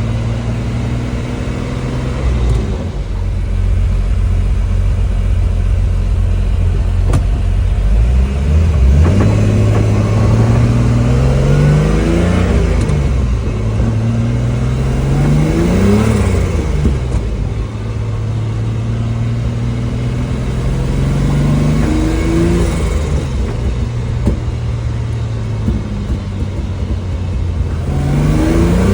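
Turbocharged BMW E46's M54 inline-six pulling under acceleration several times: the engine pitch climbs, then drops back at each shift or lift, with steadier running between pulls. The new turbo is fitted and the exhaust leaks are fixed.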